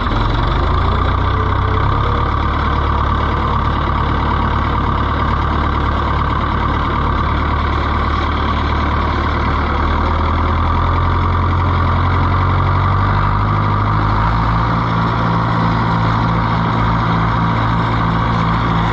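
Oliver 1365 tractor engine driving along in third gear, picking up revs in the first couple of seconds and then running steadily.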